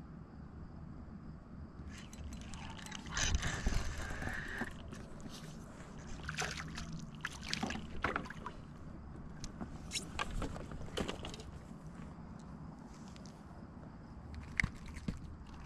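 A crappie being landed from a kayak: a rush of water noise about three seconds in, then a run of sharp clicks and knocks as the fish is swung in and handled for unhooking.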